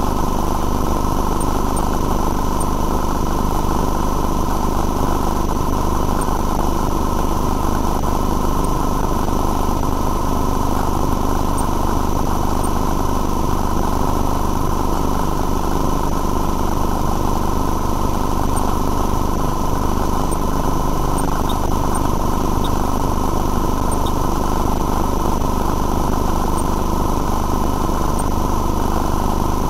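Steady, unchanging machine drone with a constant electrical hum from the sewer CCTV inspection equipment, running without any change in pitch or level.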